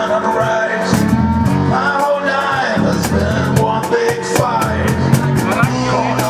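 Acoustic blues band playing live: two acoustic guitars over a cajón beat with regular cymbal strokes.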